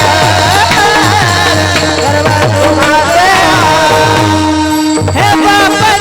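Marathi devotional singing with musical accompaniment: a wavering sung melody over a steady held tone and a regular beat of drum strokes, the drums pausing briefly near the end.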